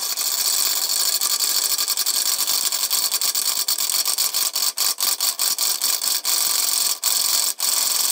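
Homemade scrap-metal machine hammer running: a steady high motor whine with repeated sharp metal knocks from the hammer mechanism, coming more often in the second half.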